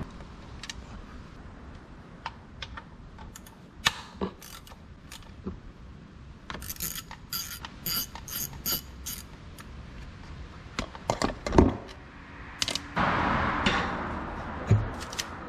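Ratchet wrench clicking in a quick run of about ten strokes, with scattered single clicks and a few heavier knocks of tools on metal.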